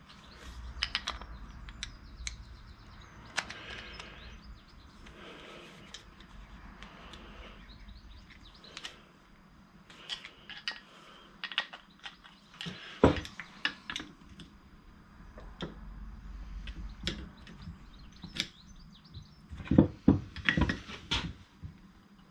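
Scattered light clicks, taps and scrapes of hands and a small metal pick tool working a rubber dust seal over the rim of a brake caliper piston. A louder knock comes about 13 seconds in, and a cluster of knocks near the end as the caliper meets the bench.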